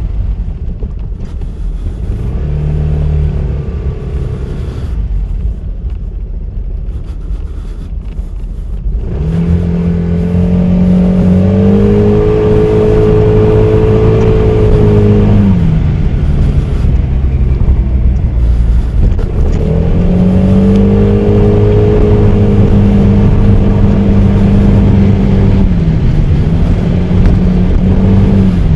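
Honda Forza 300 scooter's single-cylinder engine running on the move with road and wind noise. About nine seconds in it speeds up and holds a steady note, then eases off and picks up again twice.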